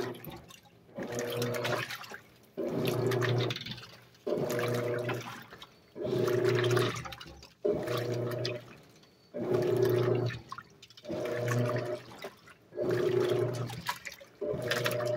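Electrolux LAC 12 top-loading washing machine agitating a load in water: the agitator motor hums in even strokes roughly every one and a half to two seconds, each with a swish of sloshing water, and there is a short lull between strokes. This is the wash agitation that comes before the soak.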